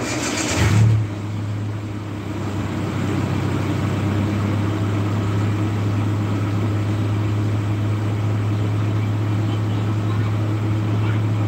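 Steady low mechanical hum that begins about a second in, after a short burst of noise.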